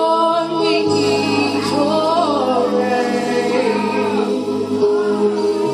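Several women's voices singing a gliding, wavering spontaneous worship melody over sustained keyboard chords; the chord changes about a second in.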